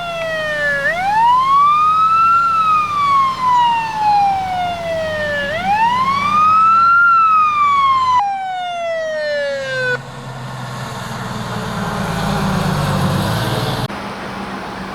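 Fire truck siren wailing, sweeping up quickly and falling slowly twice, over the hum of the truck's engine. The siren stops about ten seconds in, and a vehicle's engine noise swells, then cuts off suddenly near the end.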